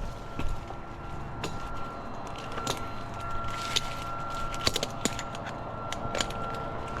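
A machine running steadily with a constant whine, over which come scattered short clicks and knocks.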